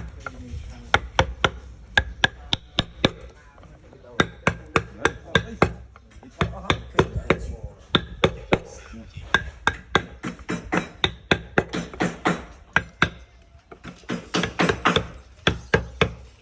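Carving chisel being struck with a mallet, cutting into wood in quick repeated taps, about three to four a second, each with a short ringing knock, in runs broken by brief pauses.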